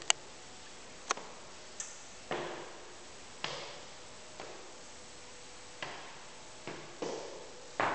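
Footsteps on a hard floor in an echoing room, irregular steps about once a second, with a few sharp clicks in the first two seconds. A faint steady hum runs underneath.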